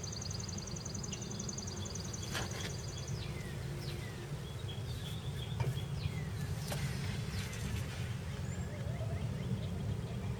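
Outdoor ambience of birds: a fast, high trill for about the first three seconds, then several short chirps sweeping downward in pitch, over a steady low rumble.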